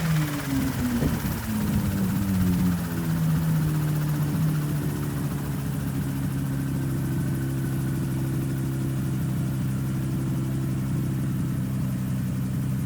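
Mosquito ultralight helicopter's engine throttling back, its pitch falling in steps over the first few seconds, then idling steadily: power brought down after touchdown.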